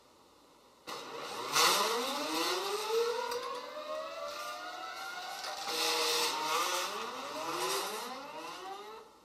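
Several geared stepper motors whining together as they drive the robot's wires, each whine rising in pitch as the motors speed up. They start about a second in, restart twice, and stop shortly before the end.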